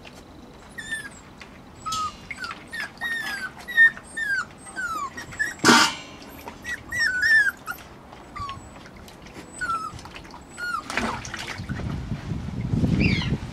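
Puppies whining and yelping in many short, high-pitched cries that drop in pitch, with a sharp knock about six seconds in and a rush of noise near the end.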